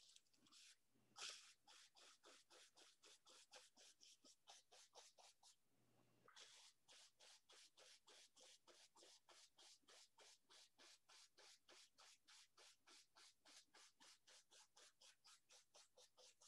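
Very faint, rapid strokes of a bristle brush on canvas, about four a second, pulling wet oil paint straight down for water reflections, with a short break about six seconds in.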